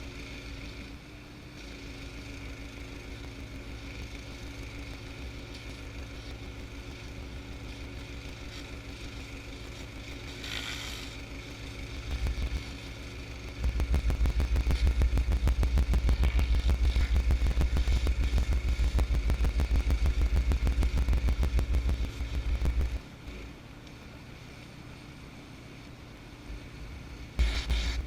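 Honda engine of a 4000 PSI direct-drive pressure washer running steadily while a surface cleaner sprays concrete. From about halfway in, a much heavier low rumble joins it for around nine seconds, then drops away.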